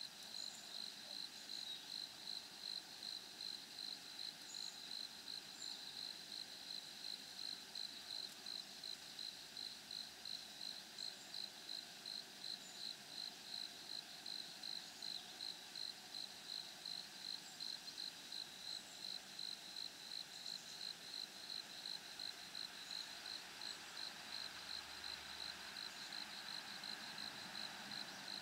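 An insect, cricket-like, chirping in a steady high pulsing rhythm of about three pulses a second, with faint short high chirps now and then above it.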